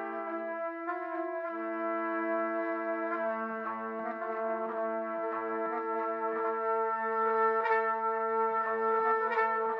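Soundtrack music of layered trumpets, sampled from the Spitfire Audio LABS "Trumpet Fields" plugin, playing slow, held chords.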